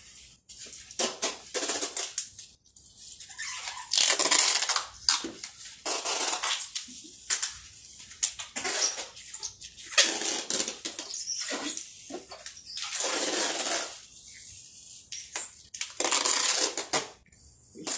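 Items being crammed and pressed down into a large cardboard cargo box: repeated rustling and crunching, in uneven bursts with short pauses between.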